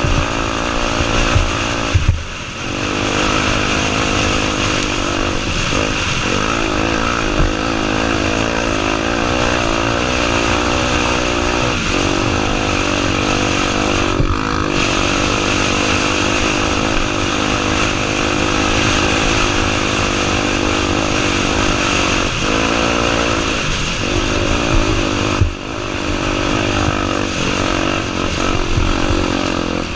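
Honda Tornado 250's single-cylinder four-stroke engine running under load as the motorcycle is ridden, its pitch rising and falling with the throttle. The throttle is shut off briefly twice, about two seconds in and near the end.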